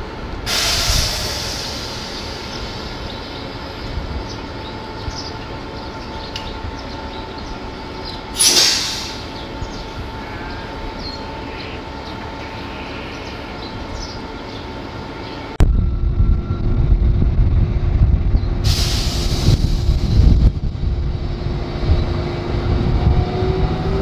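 CSR SDA4 diesel-electric locomotive running coupled to a cement wagon train, with short bursts of air hissing about a second in and again about eight seconds in. About two thirds of the way through the sound changes abruptly to a much louder, deep engine rumble, with another hiss and an engine note that rises slowly near the end.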